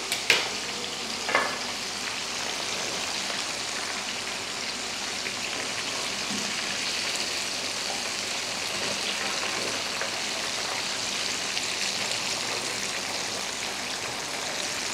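Flour-coated chicken wings deep-frying in hot oil in a pan: a steady sizzle, with the wings fully fried.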